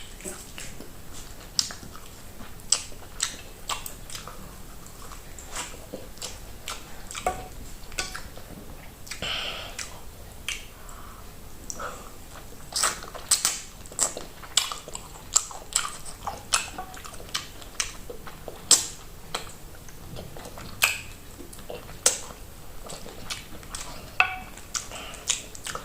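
A person eating close to the microphone: irregular wet chewing with sharp mouth clicks and crisp bites, thickest in the middle stretch.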